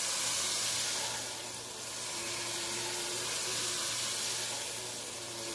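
Onions, celery and carrots sizzling in melted butter in a Power XL StirMax multi cooker's pot while its motorized stirring paddle turns them, a steady sauté sizzle.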